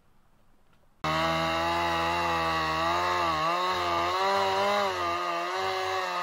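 Gas chainsaw running at high throttle, cutting into a dead ash trunk, starting abruptly about a second in. Its pitch wavers slightly as the chain bites.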